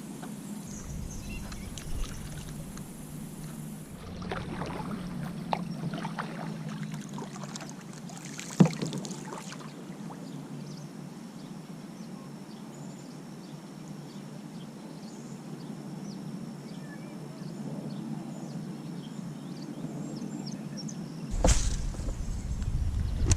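Kayak on the water: faint splashes and water sounds around the hull, with one sharp knock about eight and a half seconds in and a loud low rumble starting near the end.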